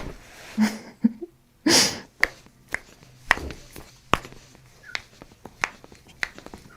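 A sharp breath out, followed by a run of short, sharp clicks and pops spaced about half a second apart as a chiropractic adjustment is made.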